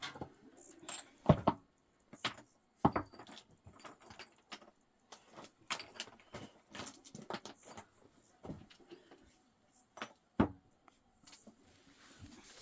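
A run of irregular clicks and knocks of hard objects striking, with the loudest knocks about a second in and again near ten seconds.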